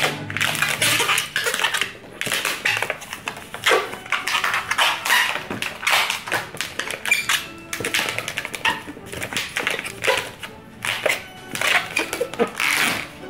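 An inflated latex twisting balloon being twisted and worked by hand: repeated short rubbery squeaks and rubbing noises, with music in the background.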